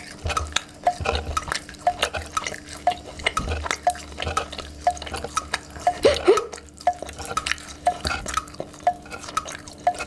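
Close-up chewing of sugar-coated cola gummy candy: sticky, wet mouth clicks and smacks with soft low jaw thuds.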